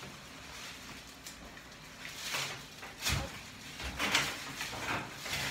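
Rustling and shuffling as people shift and handle things on an exam table, in several short bursts in the second half.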